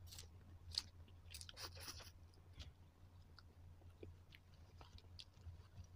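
Faint close-up mouth sounds of eating instant noodles: slurping noodles in and chewing. A cluster of wet mouth noises comes in the first two seconds, followed by quieter, scattered chewing clicks.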